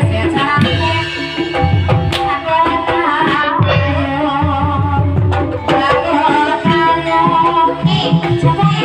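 Live ebeg (kuda lumping) accompaniment music: kendang drum patterns over steady tuned percussion, with a wavering sung melody line.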